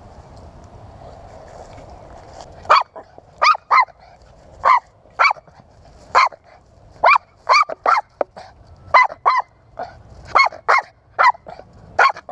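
A dog barking excitedly in about fifteen short, sharp barks at uneven spacing, starting about three seconds in, while at play with a ball.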